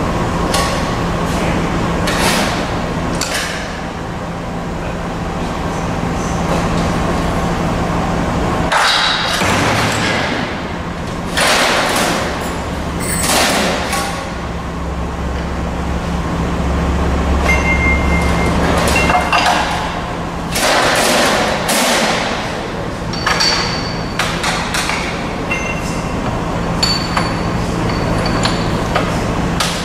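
Sheet-metal folding machine at work: a steady hum under repeated clanks and knocks as the steel sheet is slid and pushed against the tooling. A low rumble from the machine's moving parts runs through the middle.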